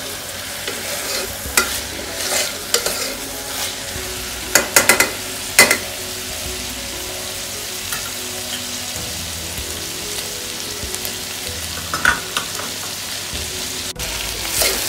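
Mixed sprouts and chopped vegetables sizzling in hot oil in a pan as they are stirred, with scrapes and knocks of the stirring utensil against the pan, a quick cluster of them about five seconds in and another near twelve seconds.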